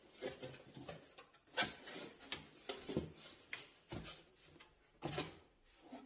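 Cardboard and paper packaging rustling and scraping as a product box is pulled out of a cardboard shipping box. The sound comes in a string of irregular short rustles and scrapes.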